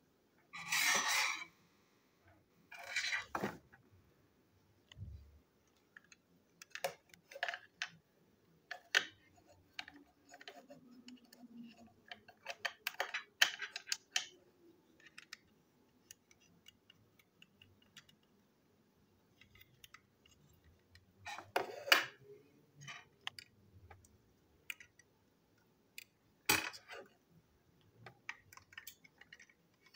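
Handling noise from a Plarail toy train being reassembled by hand: irregular small clicks, taps and scrapes of its plastic body shell and chassis, with a few louder bursts of rustling and knocking.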